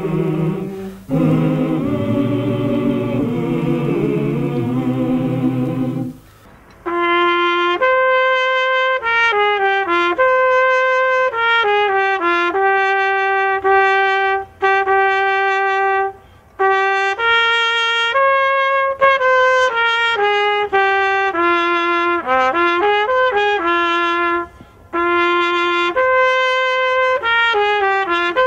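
Ensemble music with low held chords ends about six seconds in. After a short pause, a solo trumpet plays a slow melody, one held note after another, breaking briefly between phrases.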